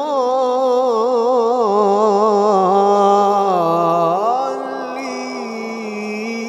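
A man's voice in melodic Quran recitation, holding one long drawn-out vowel. The pitch wavers in quick ornaments for about four seconds, then rises and holds steady on a single note.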